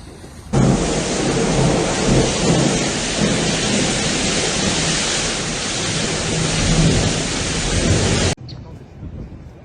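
Loud, dense storm noise of heavy rain and wind, starting abruptly about half a second in and cutting off suddenly near the end.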